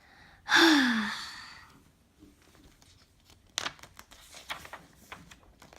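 A child's long sighing breath out, the voice sliding down in pitch as it fades, about half a second in: the release of a held breath after counting down. Then, from a few seconds in, faint scattered clicks and rustles of book pages being handled.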